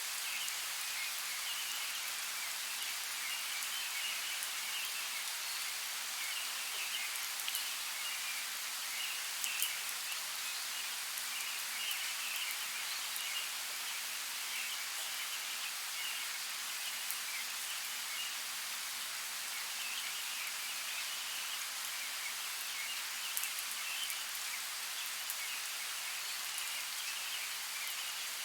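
Steady light rain in a forest, with scattered drops ticking, and faint high chirping running through it.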